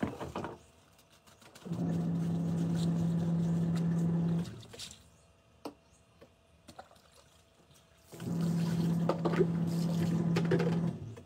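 Eureka twin-tub washing machine's wash motor running in two bursts of about three seconds each, with a steady hum over churning water and a pause of a few seconds between, the on-off agitation of its wash cycle.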